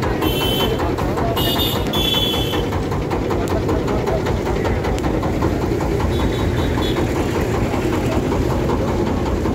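Boat engine running steadily, heard from aboard the moving boat.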